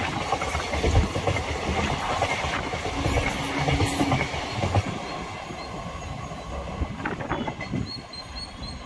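Passenger train coaches rolling past at speed, wheels clattering over the rail joints; the sound fades over the last few seconds as the end of the train draws away.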